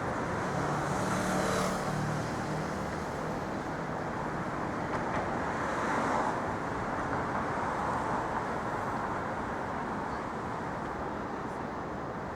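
Steady city street traffic noise: cars and other vehicles running by, with a low engine hum about a second in and one vehicle passing a little louder near the middle.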